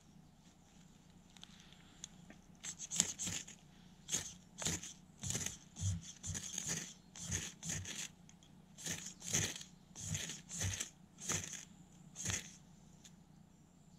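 Ferrocerium rod struck repeatedly with a striker, trying to throw sparks into birch bark tinder to catch a fire. The short, scratchy strokes begin about two and a half seconds in and come roughly one every half second to second.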